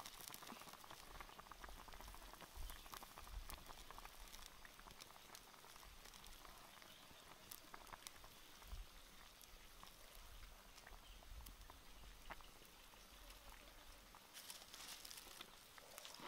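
Pot of soup simmering over a wood fire: a faint bubbling with scattered small pops and crackles.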